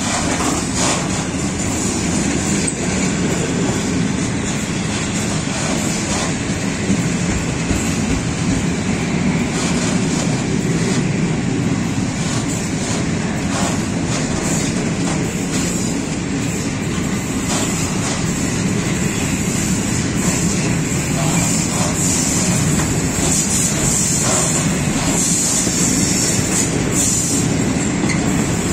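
Freight train of open-top gondola wagons rolling past: a steady rumble of wheels on rail with clatter from the rail joints. A high squeal grows stronger near the end.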